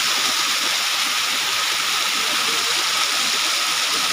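Steady rush of flowing stream water, with a faint thin steady tone running underneath.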